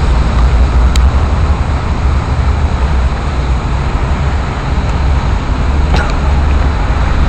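Loud, steady outdoor background noise of a rainy street: an even rushing hiss over a deep low rumble, with two faint clicks, about a second in and near the end.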